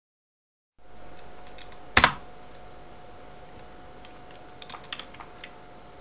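Computer keyboard keystrokes: one loud clack about two seconds in, then a quick run of lighter key taps near the end, over a faint steady hum.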